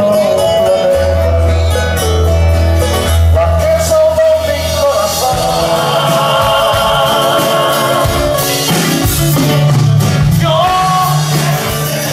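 Andean folk band playing live: a male voice singing over acoustic guitar and a steady bass line, with long wavering held notes in the middle.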